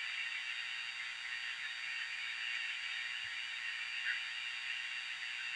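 Frogs calling in a steady chorus: a dense, unbroken high-pitched trill that holds at an even level throughout.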